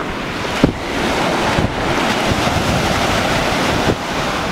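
Ocean surf breaking and washing up the beach in a steady rush, growing louder about a second in, with wind buffeting the microphone in low thumps.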